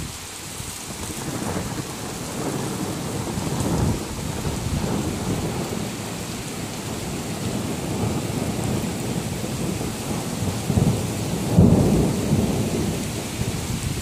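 Torrential rain hissing steadily while thunder rumbles in long rolling waves, loudest about four seconds in and again near the end.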